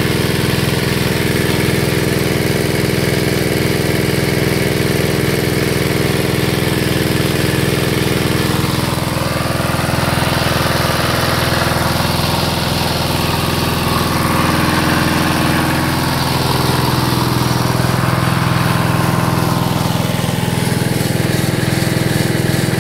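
Small engine running steadily, belt-driving a home-made dynamo generator.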